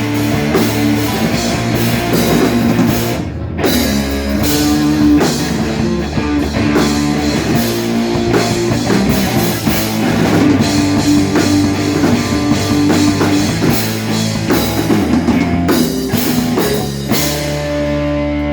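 Rock band playing live, with a drum kit pounding under distorted electric guitars. The drums break off briefly about three seconds in; near the end they stop and a held guitar chord rings on.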